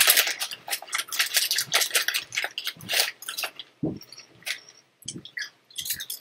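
Ridged potato chips crunching as they are bitten and chewed, in dense crackling for the first few seconds and then sparser, along with a foil chip bag crinkling as a hand reaches in.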